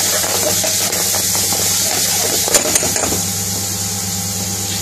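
Sauce sizzling in a frying pan as it is stirred, with scrapes and a couple of sharp clicks of the utensil on the pan about two and a half seconds in, over a steady low mechanical hum.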